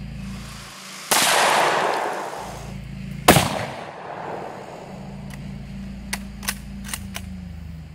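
Mosin-Nagant bolt-action rifle in 7.62x54R fired at close range: a loud blast about a second in that dies away, then a sharper, louder crack about three seconds in. Then several sharp clacks as the stiff bolt is smacked open and shut to chamber the next round.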